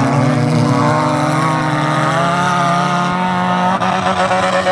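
Several enduro race cars' engines running hard around a dirt track, their overlapping engine notes rising and falling as the cars accelerate and lift.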